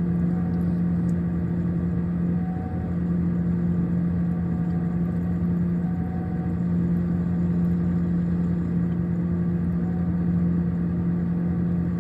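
Steady low hum of a refrigerator's compressor machinery running, holding an even pitch throughout with no breaks.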